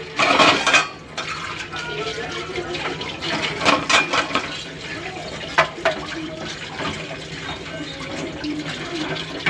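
Aloo gobi curry cooking in a steel kadai, its gravy bubbling and crackling steadily, with a few sharp clinks about halfway through.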